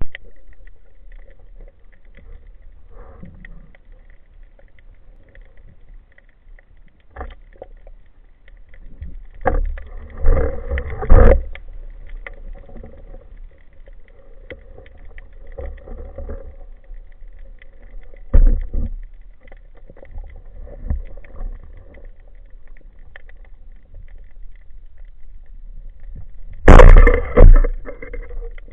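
Muffled underwater noise through a waterproof camera housing, with scattered knocks and thuds from a diver moving. Near the end comes a sudden, loud, sharp crack and clatter: a band-powered speargun being fired.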